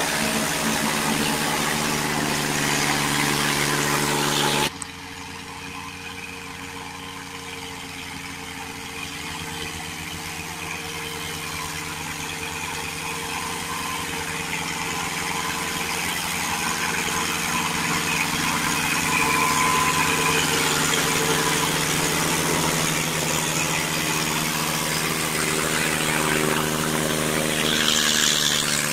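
Small farm tractors' diesel engines running under load as they pull log-laden trailers up a steep dirt track. The sound cuts off suddenly about five seconds in to a quieter engine that grows gradually louder.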